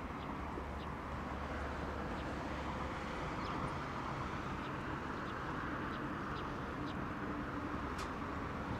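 Steady hum of distant road traffic crossing a long bridge over open water, with short high bird chirps scattered through it and a sharp tick near the end.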